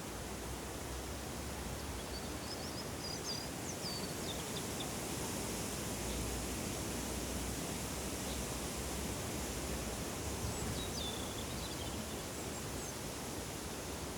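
Forest ambience: a steady rushing hiss with small birds chirping in short high phrases, a few about two to five seconds in and again around eleven seconds.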